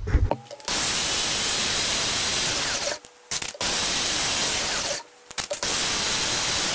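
Belt sander running while a tungsten TIG electrode, spun in a cordless drill, is ground to a point against the sanding belt. The steady noise cuts out briefly twice, about three and five seconds in.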